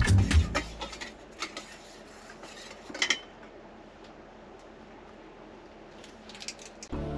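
Background music stops within the first second, then a few light clinks of kitchen utensils against dishes: single taps about a second in, a louder clink about three seconds in and a quick run of clinks near the end, before music comes back.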